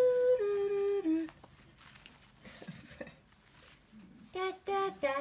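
A person humming a slow tune of long held notes, each sliding to a new pitch, for about the first second. After a quiet gap, short sung notes come in near the end.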